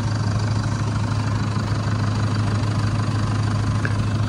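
Engine of an off-road rally pickup idling steadily: a constant low drone with no revving.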